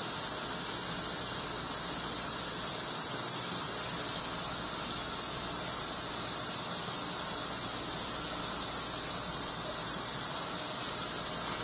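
Kitchen tap running steadily into the sink, an even hiss of water.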